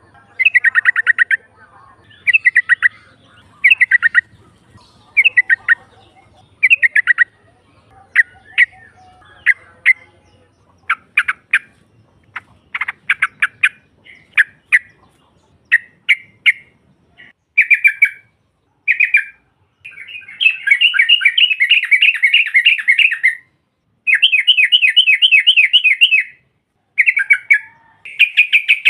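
Yellow-vented bulbul calls: short, fast bubbling phrases about every one and a half seconds, turning into longer stretches of rapid chattering from about twenty seconds in.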